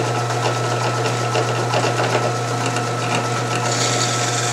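Drill press motor running steadily with a low hum while its twist bit drills out the hole of a metal washer held in pliers. A harsher, higher cutting noise comes in near the end as the bit bites into the washer.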